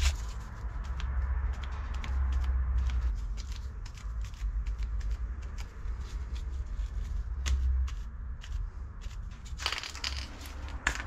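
A crumpled sheet crinkling and crackling as it is pressed and dabbed onto wet spray paint to texture it, over a low steady rumble. A short aerosol spray hiss comes near the end.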